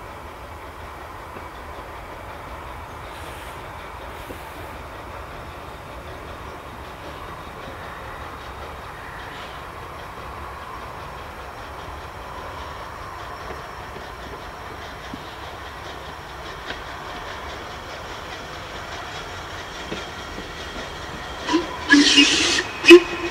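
Ivatt 2MT steam locomotive No. 46447 approaching from a distance, a faint steady rumble of the train. Near the end come a few short, loud blasts that fit the engine's whistle.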